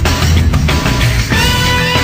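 Loud rock background music with a heavy bass line; held notes come in about a second and a half in.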